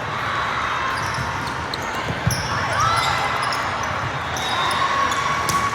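Indoor volleyball play echoing in a gym: a sharp ball contact a little over two seconds in, short squeaks of shoes on the court floor, and a hum of voices behind.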